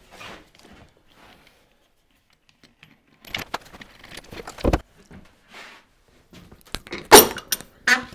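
A wooden saw-sharpening jig being taken apart by hand: scattered light clicks and rattles of its parts, a dull thump about halfway through, and two sharp knocks of wood on wood near the end, the first the loudest.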